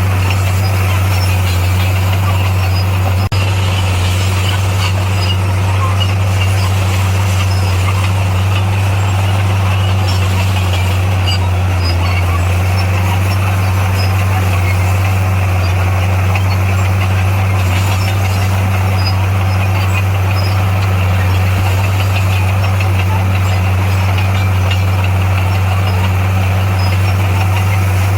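Diesel engine of heavy earthmoving equipment running at a steady speed, with a low, even hum and no change in revs. There is a single short click about three seconds in.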